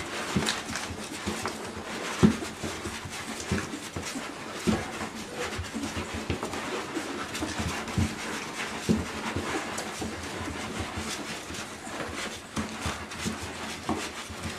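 Dog panting, with scattered short clicks and soft knocks throughout and a sharper knock about two seconds in.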